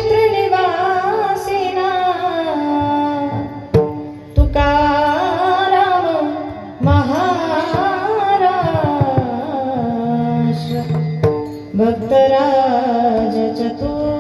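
A woman singing a long, gliding devotional melody in kirtan style over a steady held drone, with hand-drum strokes from a pakhavaj.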